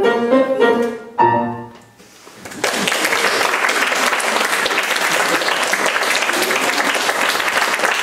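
A boy's voice sings the final notes of a song over piano accompaniment, ending about two seconds in. After a short pause, an audience applauds steadily.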